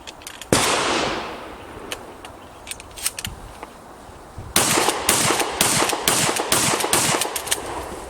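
Shotgun firing during a recoil test: one loud shot about half a second in, then a few light mechanical clicks, then a rapid string of loud reports in the second half.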